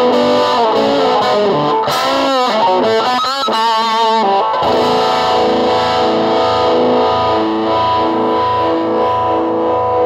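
Distorted electric guitar with effects playing a lead line with pitch bends and vibrato, then a chord held and left ringing from about halfway through.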